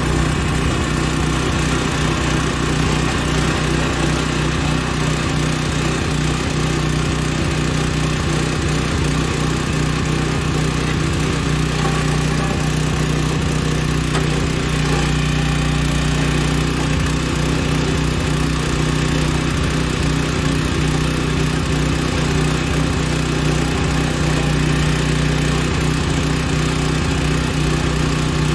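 Engine of a small, newly assembled backhoe running steadily, with an even tone and no revving.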